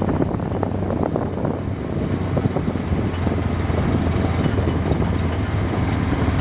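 A vehicle's engine running steadily, a constant low hum under continuous rough rumbling noise.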